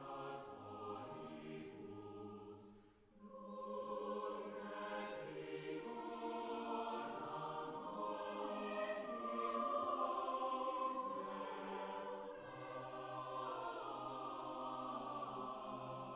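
Slow, solemn background music of long held, choir-like voices, dipping briefly about three seconds in before swelling again.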